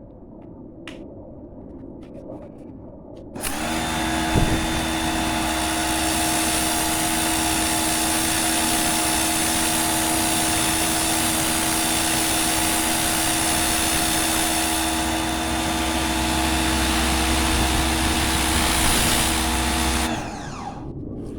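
Pro Clean PKPW01 electric pressure washer's motor and pump starting up a few seconds in and running with a steady hum over a hiss for about sixteen seconds, then shutting off and winding down near the end.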